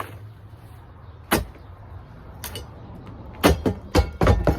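Sharp knocks and bangs from demolition work on a spa: a single knock, a fainter one, then a quick run of four or five loud bangs near the end.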